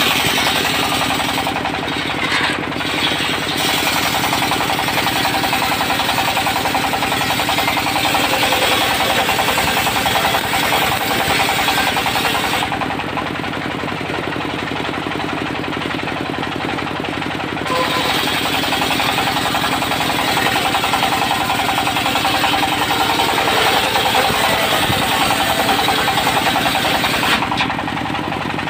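Diesel engine of a mobile circular sawmill running steadily, with the saw blade cutting teak in long stretches: the high hiss of the cut drops away briefly about two seconds in, for about five seconds in the middle and again near the end while the engine keeps running.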